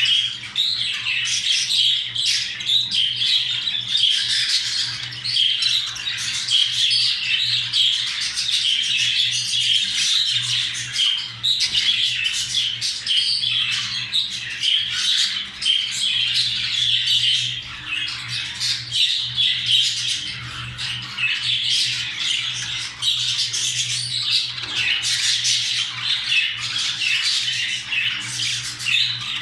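Budgerigars chattering and squawking without a break, a busy stream of quick chirps and warbles: the chatter of budgies during mating.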